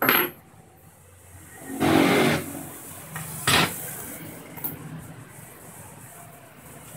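Handling noise while a blade is fitted on a handheld stone cutter. A sharp metal knock comes at the start, then a longer scraping clatter about two seconds in as a spanner is set down on the table. Another sharp knock follows about a second and a half later.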